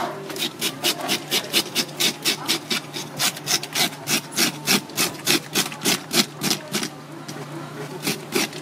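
A scaler scrapes the scales off a Neptune grouper in quick, regular strokes, about four or five a second. The strokes stop briefly about seven seconds in, then start again.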